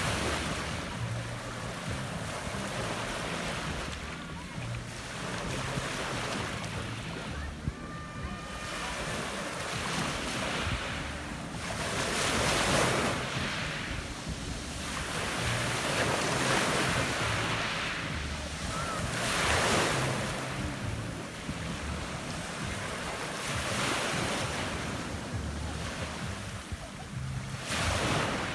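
Adriatic Sea waves breaking and washing up a pebble beach, the surf swelling and falling back every few seconds. Wind buffets the microphone with a low rumble.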